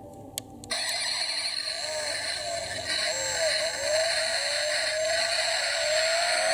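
A die-cast Mercedes-AMG G63 toy car's sound-and-light module, set off with a click, plays a recorded engine start and rev through its small built-in speaker, the pitch climbing steadily over the last few seconds.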